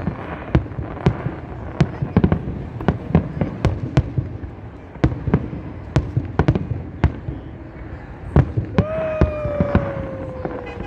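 Fireworks going off in a rapid, irregular string of sharp bangs and pops. Near the end a long tone, held about two seconds, slowly falls in pitch over them.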